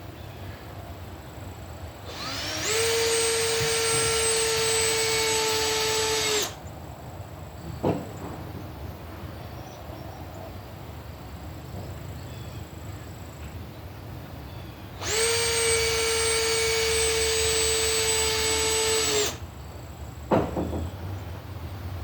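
A power drill runs twice, each time for about four seconds at a steady high whine, speeding up at the start and winding down at the end. A sharp knock follows each run about a second later.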